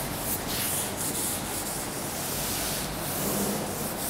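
Blackboard duster rubbing over a chalkboard in repeated back-and-forth strokes as it wipes off chalk writing: a steady scraping hiss that swells with each stroke.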